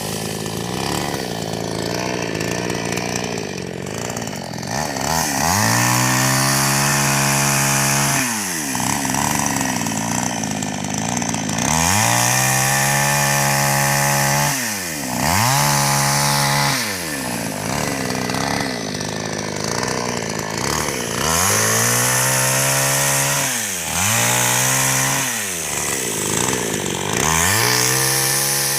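Petrol chainsaw running, its engine revving up and changing pitch in repeated bouts of a few seconds each as it cuts wood, easing back between bouts.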